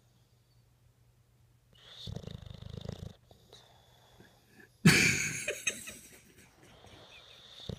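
English bulldog snoring: one buzzy snore about two seconds in, then a sudden loud burst of noise a little past the middle that fades over about a second.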